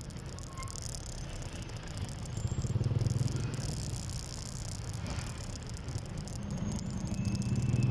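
Small motorcycle engine running in town traffic, with rattling and road noise. The engine hum swells about three seconds in and again near the end.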